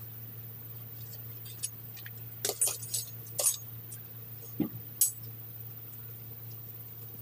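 Long metal blade scraping and clinking against concrete edging and pavers while weeds are scraped out: a run of short, sharp metallic scrapes and clinks over a few seconds, the last the loudest, then they stop.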